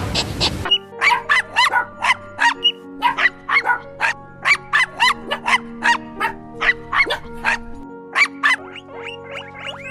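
A small dog yapping: a quick run of short, high yaps, each rising in pitch, about two or three a second, over background music.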